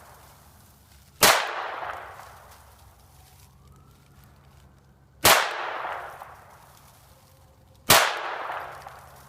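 Three gunshots, about four seconds and then two and a half seconds apart, each followed by a long echoing decay.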